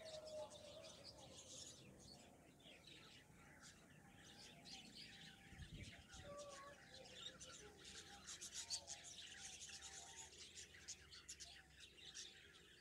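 A group of caged finches chirping and twittering faintly, with many short, high calls in quick succession. A soft low bump comes about six seconds in.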